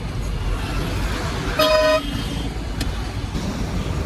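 A vehicle horn toots once, briefly, about a second and a half in, over the steady low engine and road rumble of a moving truck.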